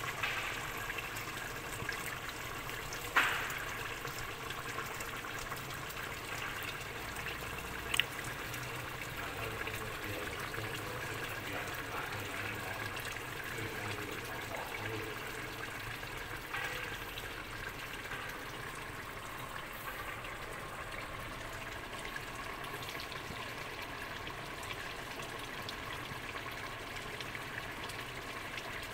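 Braised pork stew bubbling in an open aluminium pressure-cooker pot on a gas burner, boiling to reduce its liquid: a steady bubbling, with two sharp clicks about three and eight seconds in.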